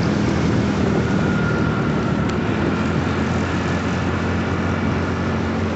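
Clash 200's fuel-injected engine running at a steady cruise, with rushing wind and road noise over it.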